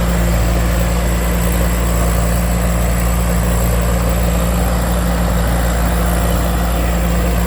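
Rice combine harvester running steadily, a continuous loud engine drone with a deep, even hum.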